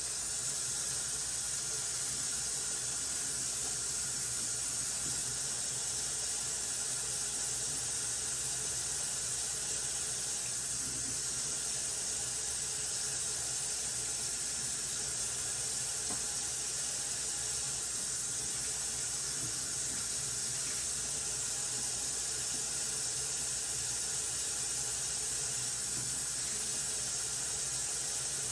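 KitchenAid stand mixer running steadily at one speed, driving the Spiralizer Plus attachment. It is a constant high whir with a faint squeal that cuts in abruptly and holds an even level.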